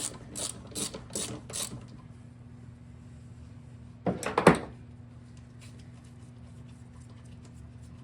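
Ratchet wrench clicking through about five quick strokes, roughly two a second, as a bolt is worked loose during the teardown. About four seconds in comes a loud clunk, with a steady low hum underneath.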